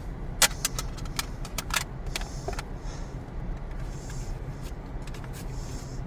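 Sharp clicks and small rattles of plastic toy pieces and packaging being handled, mostly in the first two seconds, with a few soft rustles later, over a steady low hum.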